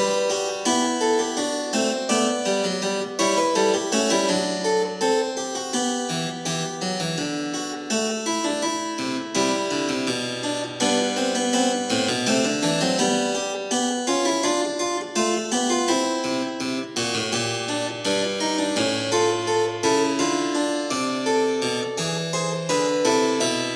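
Solo keyboard music, a brisk run of quickly changing notes with a steady pulse, playing as the silent film's score.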